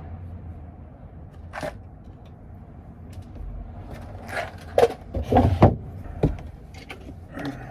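Close handling noises: a single click, then a quick run of clicks and knocks about four to six seconds in, over a steady low hum.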